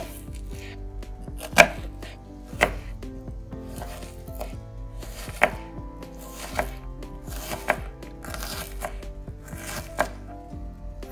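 Kitchen knife chopping an onion on a cutting board: sharp knocks of the blade hitting the board at irregular intervals, with softer crunching cuts through the onion between them.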